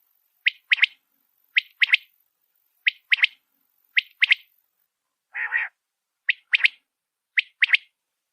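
Desert quail calling: a short three-note phrase, one note then a quick pair, repeated about once a second. The run is broken once, just past the middle, by a single lower, harsher call.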